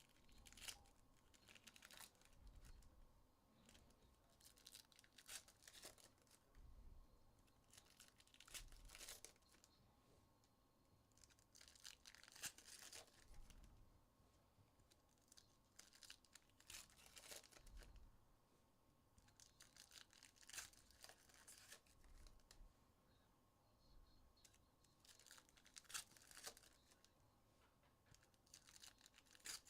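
Faint tearing and crinkling of foil trading-card pack wrappers being ripped open, in short scratchy bursts every few seconds.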